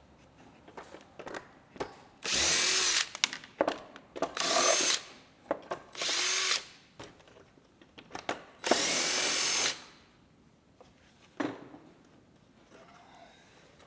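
Cordless drill-driver spinning out the fasteners that hold the plastic panel, in four short runs of about a second each, with small clicks of handling between them.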